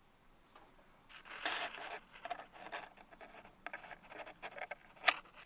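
A small bird trapped between window panes, fluttering and scrabbling against the glass in irregular bursts, with one sharp tap, the loudest sound, about five seconds in.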